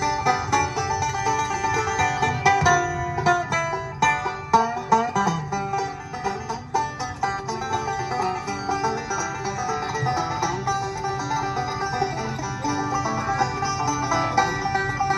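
Background bluegrass-style music with quick plucked string notes running throughout, and no singing.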